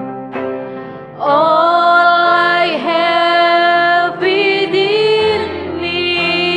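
Slow worship song: a woman's voice comes in about a second in, singing long held notes over keyboard and acoustic guitar. A low bass note joins near the end.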